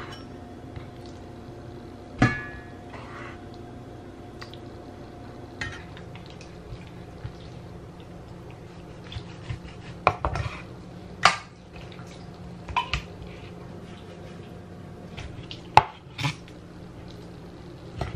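Stainless steel meat cleaver chopping raw pork ribs on a wooden cutting board: scattered sharp knocks at uneven intervals, some with a short metallic ring. The loudest come about two seconds in and in a cluster between about ten and sixteen seconds.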